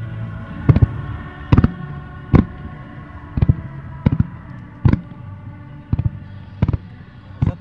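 Fireworks going off in a quick regular series: about nine sharp bangs, one roughly every three-quarters of a second, as rows of comets shoot up over the river.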